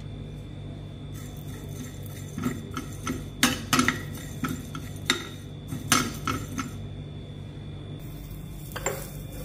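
A steel spoon scraping and clinking against a small frying pan as whole fennel, cumin and coriander seeds are stirred while dry-roasting, with a run of sharp clinks from about two to seven seconds in. A single knock comes near the end, over a steady low hum.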